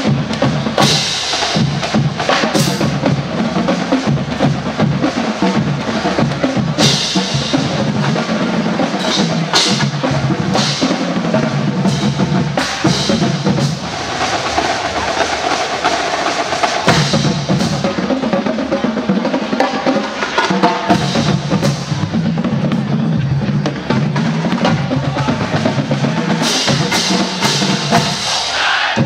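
Marching band drumline playing a cadence: snare and bass drums with repeated cymbal crashes.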